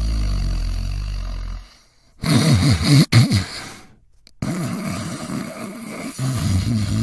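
Human snoring: a long, low snore, then after a brief silence a louder snore about two seconds in. After another short silence, more snoring starts abruptly.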